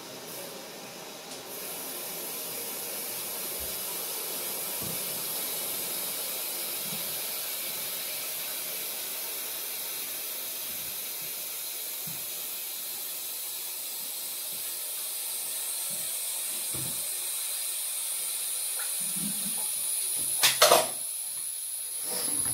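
Toilet cistern filling with water through its fill valve: a steady high hiss that starts about a second and a half in. A couple of sharp knocks sound near the end.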